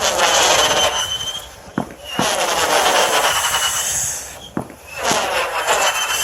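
Fireworks going off: about five sharp bangs, with long stretches of crackling hiss and high whistling tones between them.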